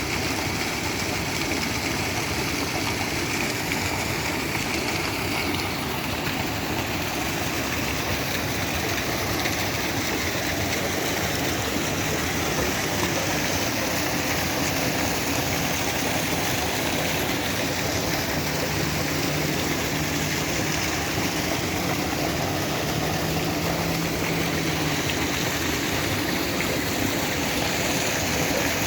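Steady rushing of falling water, an even hiss with no breaks; a faint low hum joins for several seconds past the middle.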